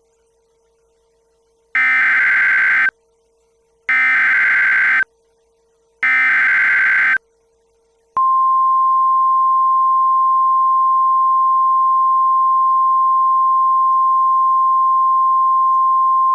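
Three SAME digital header bursts of a NOAA Weather Radio alert, each a harsh data screech about a second long with a second's gap between them, then the steady single-pitch 1050 Hz weather radio warning alarm tone starting about eight seconds in.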